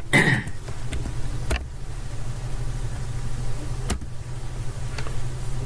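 Steady low electrical hum, with three short sharp mouse clicks at about a second and a half, four and five seconds in.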